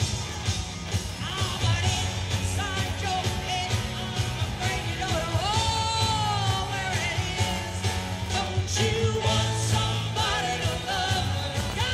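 Live rock band playing, with a woman singing high over it. About halfway through, her voice slides up into a long held note and falls away.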